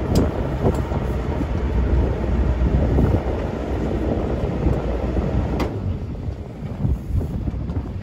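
Low, uneven rumble aboard a sailing boat motoring slowly through a marina: the engine with wind buffeting the microphone. It drops off fairly suddenly a little past halfway.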